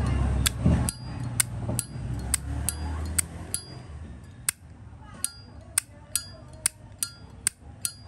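Zippo lighter, its powder coat stripped, having its lid flicked open and snapped shut over and over: sharp metallic clicks about two a second, each with a brief ringing ping. Low handling noise runs under the first three seconds.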